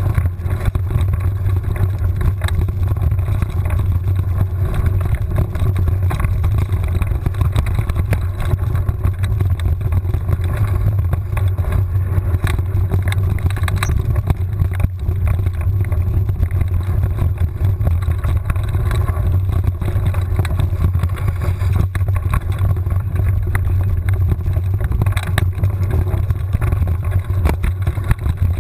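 Mountain bike riding fast down a dirt trail: a steady rush of wind buffeting the camera microphone, with the bike rattling and knocking over the rough ground.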